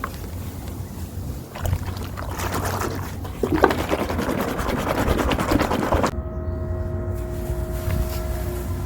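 Gritty block crumbling in foamy water, a dense crackle of many small grains breaking and rubbing that starts about one and a half seconds in and cuts off abruptly about six seconds in. After that a steady hum with a few level tones remains, over a low rumble throughout.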